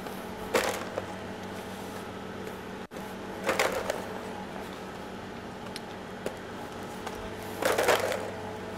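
Frozen raspberries clattering in a plastic tub as they are scooped out by hand, in three short bursts, over a steady low hum.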